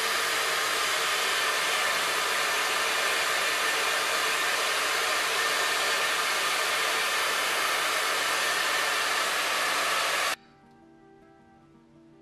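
Handheld hair dryer blowing steadily on its cool setting, held close, drying set gel at a wig's hairline. It cuts off suddenly about ten seconds in, leaving quiet background music.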